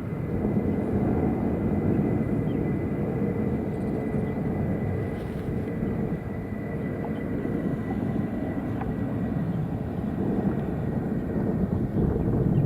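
Jet aircraft engines at an airport: a steady low rumble with a faint steady high whine.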